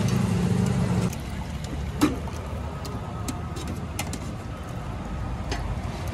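Steel ladle clinking twice against steel pots and plates as curry is served, over the low hum of street traffic, which is louder for the first second.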